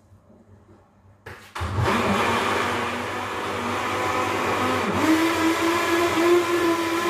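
Electric countertop blender switched on after a click about a second and a half in, then running loudly and steadily; its motor note dips about five seconds in and settles slightly higher.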